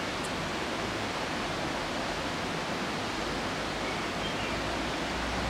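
Steady, even hiss of outdoor background noise, with no clear rhythm or tone in it.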